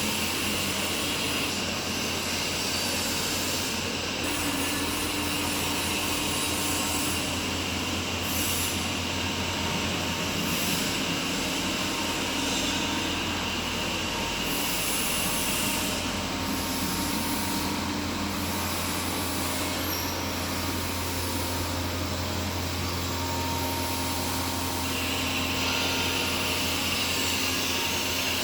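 3D printer filament extruder line running: a steady machine hum and whir, with a high whine that drops out about halfway and comes back near the end.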